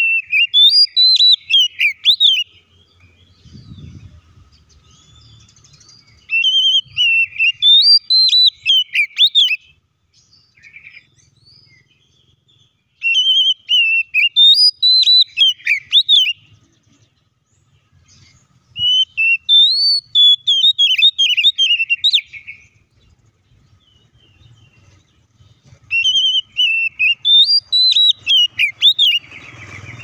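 Oriental magpie-robin singing: five phrases of quick, varied whistled notes, each about three seconds long, with pauses of a few seconds between them.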